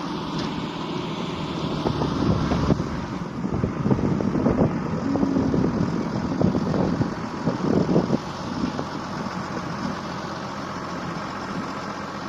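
Tractor engine running steadily with a hay spreader working, with louder irregular knocking and rattling from about two to eight seconds in.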